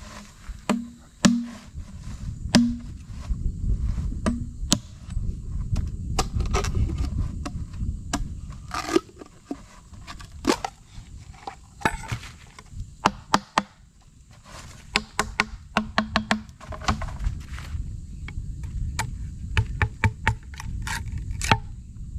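Irregular sharp knocks, cracks and scrapes of a knife chopping and shaving wood to make a cup and chopsticks, some blows with a short hollow ring, over a steady low rumble.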